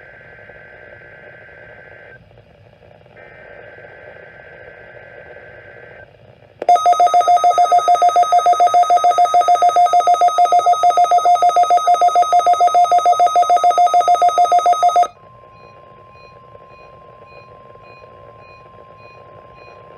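NOAA Weather Radio weekly test as picked up by a weather radio receiver. There are two bursts of SAME digital header tones, then a loud, rapidly pulsing electronic alarm beep from the receiver for about eight seconds. Under it the station's steady single-pitch warning alarm tone comes in, and it carries on alone after the beeping stops.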